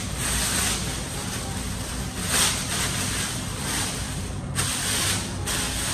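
Short bursts of hissing over a low steady hum. The longest burst starts and stops sharply and lasts about a second, near the end.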